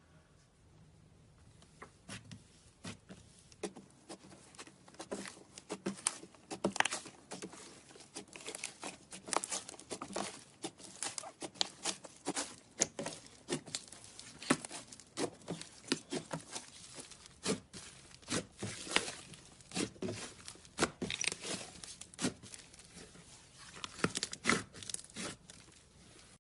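Slime being squeezed and worked by hand, a dense, irregular run of small clicks, pops and crackles.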